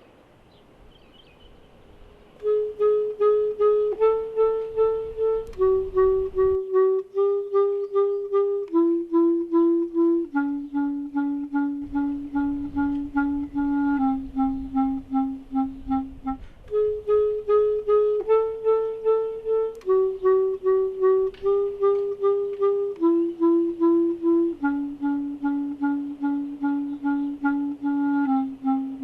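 Background music: a woodwind melody, clarinet-like, of short repeated notes stepping mostly downward. It comes in about two and a half seconds in, and the same phrase starts again about halfway through.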